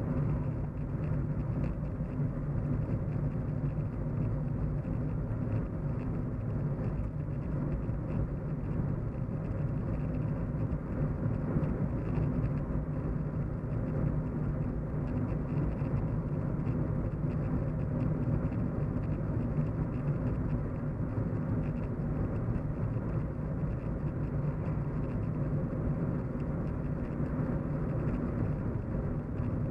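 Steady low road-and-engine hum of a car being driven at an even speed, heard from inside the cabin.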